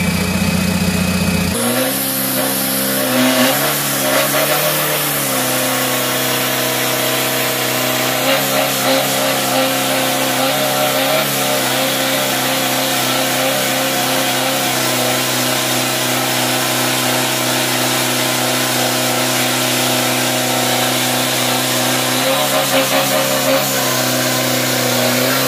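Isuzu D-Max pickup's engine revved up about a second and a half in and held at steady high revs during a long burnout. A steady hiss comes from the spinning rear tyres, and the revs shift briefly a few times.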